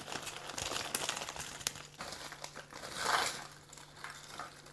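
Plastic bag of frozen mixed seafood crinkling as it is handled, with scattered light clicks and a louder rustle about three seconds in.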